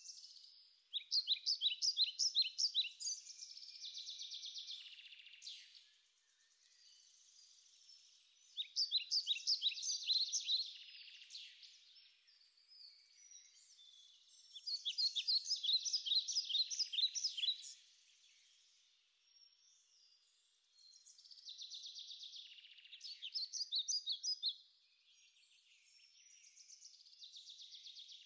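A songbird singing: bursts of quick, high notes lasting a few seconds, repeated after pauses of a few seconds, with fainter twittering in between.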